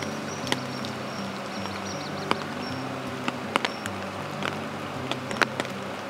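Soft background music of low sustained notes that change every second or so. A thin high chirping sounds in the first second and a half, and sharp ticks fall about half a dozen times.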